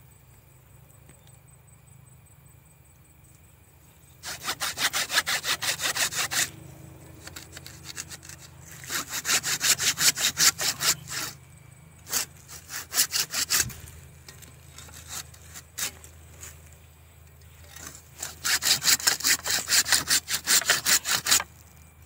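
Hand pruning saw cutting through a live fig branch: runs of quick rasping strokes, about five a second, with pauses between. The sawing starts about four seconds in.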